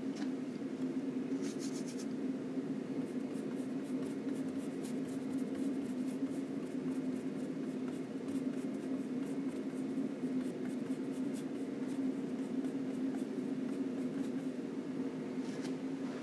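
Long flat brush working oil paint onto a linen panel: a run of light, scratchy ticks from about three seconds in until near the end, over a steady low hum.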